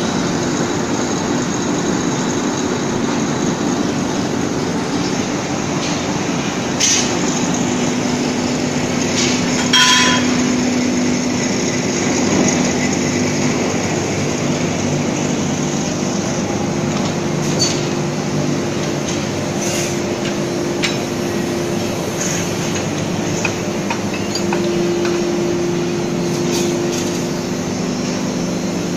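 Steady din of the machinery on a hot-rolled spring steel flat bar production line, with a constant low hum and a few sharp metal clanks; the loudest comes about ten seconds in and rings briefly.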